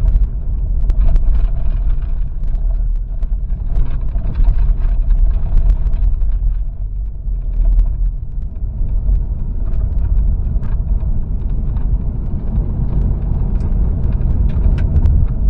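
Inside the cab of a 2014 Ram pickup driving over a dirt road: a steady low rumble of the engine and tyres, with frequent small knocks and rattles from the rough surface. The engine runs without an audible misfire, which the mechanic takes as a sign that the cylinder misfire is fixed.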